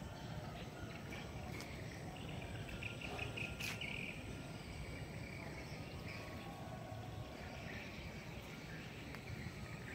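Faint outdoor ambience: a steady low background noise with light, broken high chirping, strongest about three to four seconds in and again near the end, and a single click in the middle.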